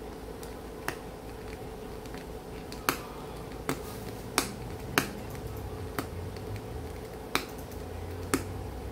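Small screwdriver clicking against the screws and plastic inner housing of an Echo Dot smart speaker as it is taken apart: about eight sharp, short clicks at uneven intervals.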